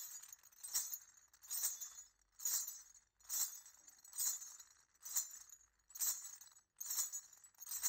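Jingling metallic percussion: a bright shake repeated in a steady beat a little more than once a second.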